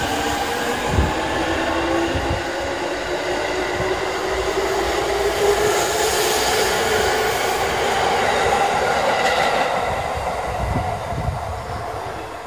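JR 205-series electric train pulling out of a station and gathering speed, its motors giving a whine that climbs slowly in pitch, with thuds of the wheels over rail joints. The sound fades near the end as the last car passes.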